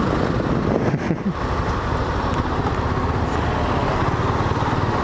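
Motorcycle engine running steadily while riding in city traffic, with wind rushing over the bike-mounted microphone and the sound of surrounding cars.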